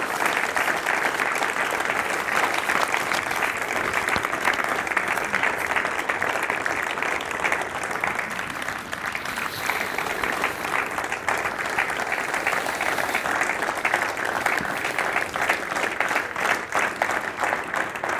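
Audience applauding, many hands clapping steadily; it eases a little about halfway through and then swells again.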